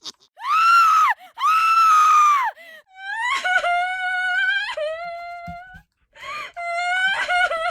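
A high-pitched voice crying out in pain: two short rising-and-falling cries, then long wavering wails.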